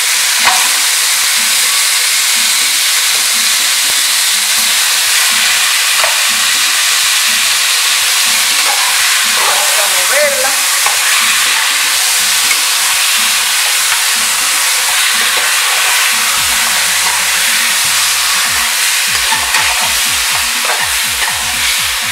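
Goat meat searing in hot oil and caramelized sugar in an aluminum caldero, a loud, steady sizzle, while a spoon stirs the pieces around the pot.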